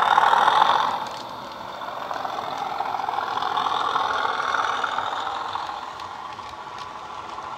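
Bachmann OO gauge class 37 model's DCC sound decoder playing the English Electric diesel engine under power through the model's small speaker, loudest in the first second as the locomotive passes, then fading as it draws its coaches away.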